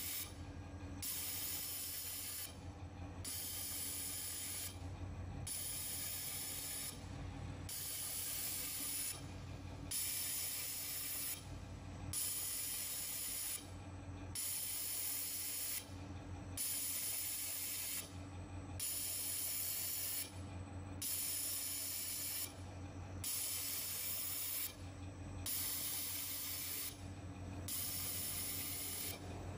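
Automatic fiber laser welder welding ring-shaped seal welds on a stainless steel pillow plate. Each weld is a hiss about a second and a half long, repeating about every two seconds with short breaks between welds, over a steady low machine hum.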